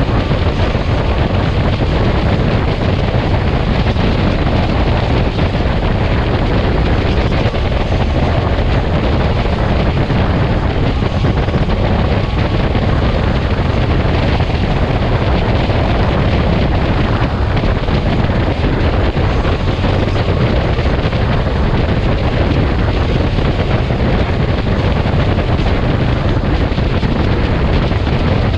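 Steady wind rushing over the microphone of a trike cruising at highway speed, mixed with engine and road noise.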